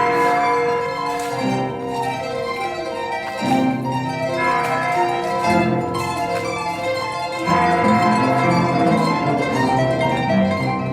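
Paraguayan harp music: plucked strings playing a melody over changing chords.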